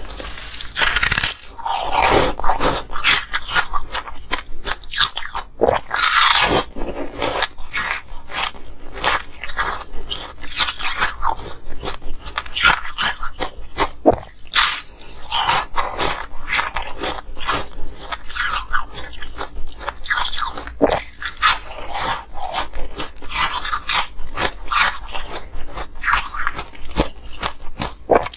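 Biting and chewing of porous, foamy frozen ice blocks right at a clip-on microphone: a dense run of crisp crunches and crackles, one after another.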